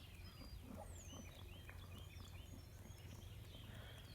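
Faint distant birdsong: scattered short chirps and a few down-slurred whistles over a low steady hum.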